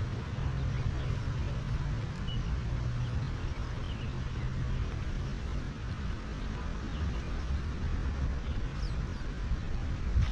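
Low steady engine hum of road traffic, its pitch dropping somewhat about halfway through, with faint bird chirps and a thump near the end.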